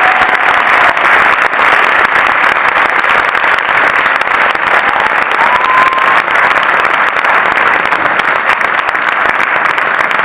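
Audience applauding steadily, with a faint whistle or two.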